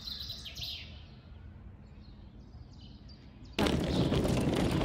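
Small birds chirping over a low outdoor rumble. About three and a half seconds in, a sudden loud rushing noise cuts in and takes over.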